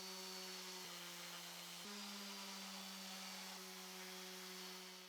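Electric sander running on wood with 150 grit sandpaper, a faint steady motor hum whose pitch shifts slightly about one and two seconds in.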